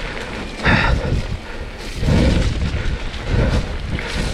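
Heavy low rumbling and irregular thuds buffeting an action-camera microphone as a mountain bike rolls down a rough, wet, muddy trail.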